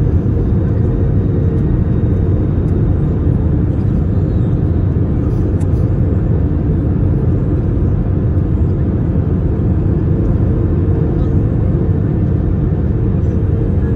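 Steady cabin noise inside an Airbus A321 on its approach to landing: a low, even rumble of airflow and its IAE V2500 turbofan engines, with a faint steady hum above it.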